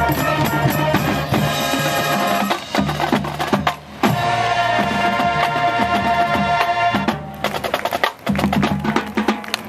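High-school marching band playing: brass holding chords over drumline and front-ensemble percussion hits, with short breaks about four seconds in and again around eight seconds.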